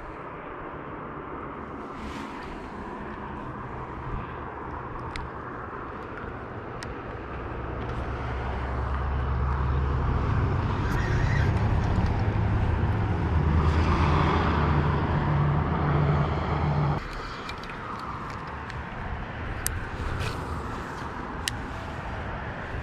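Steady road traffic noise, with a heavy vehicle's engine hum swelling louder through the middle and cutting off suddenly, plus a few faint clicks.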